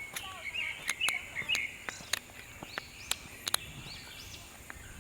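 Birds chirping and calling, with a quick run of chirps in the first second and a half and repeated arching calls, over a steady high tone. Scattered sharp clicks sound throughout.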